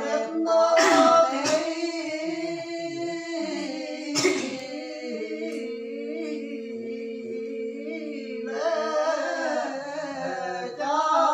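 Unaccompanied traditional folk singing in the hà lều style: a voice holding long, wavering notes that slide between pitches, with one note held steadily for several seconds in the middle, growing louder near the end. Brief sharp noises cut in about one second and four seconds in.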